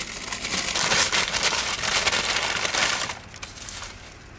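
Paper food packaging crinkling and crackling as a wrapped burger is pulled from its bag and turned over in the hands. The crackling stops about three seconds in.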